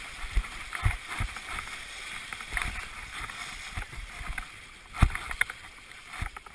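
Whitewater rushing and splashing around a canoe as it is paddled through the tail of a Class III rapid, with scattered low knocks and a sharp knock about five seconds in.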